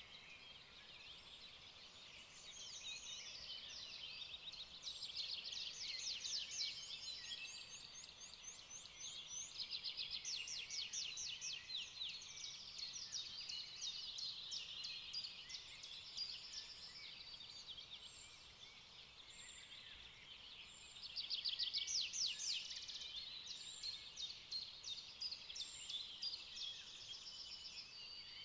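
A chorus of several small birds singing and chirping, with rapid overlapping trills; the songs swell and fade, loudest about five, ten and twenty-one seconds in.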